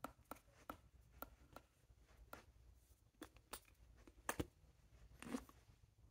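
Soft, irregular taps and clicks of hands meeting and brushing against each other and a fleece jacket while signing in ASL, over near silence; the sharpest double tap comes about four and a half seconds in, followed by a short rustle.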